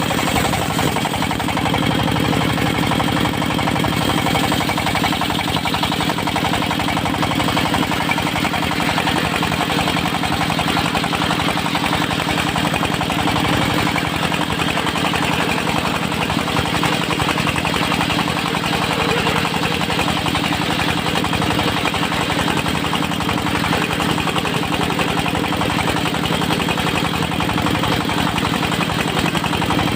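Diesel engine of a homemade circular sawmill rig running steadily, with a rapid, even firing beat.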